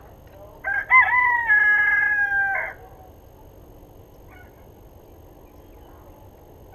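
Rooster crowing once: a single crow of about two seconds, starting just under a second in, with the long held last note sagging slightly in pitch.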